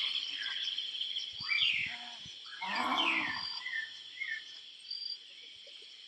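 A woman and a young girl giving mock tiger roars with their mouths wide open: two drawn-out growling cries about a second and a half apart. A steady high chirring of insects runs underneath.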